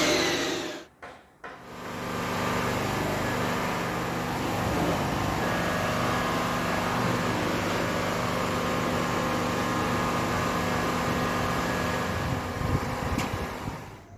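A steady mechanical hum, like a small fan or motor running, with a few low thumps and a sharp click near the end. A short tail of music is heard in the first second.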